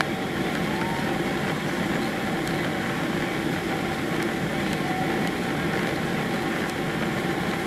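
Steady cabin noise inside a Boeing 767 airliner on approach to landing: the jet engines and the rush of air over the fuselage make an even roar, with a faint steady hum in it.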